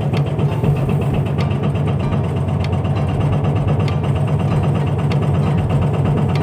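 Backhoe's diesel engine running steadily, with a faint sharp tick about every second and a quarter.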